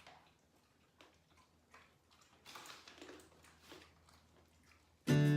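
Faint scattered clicks and soft rustles of household items being handled, then music comes in suddenly and loudly near the end.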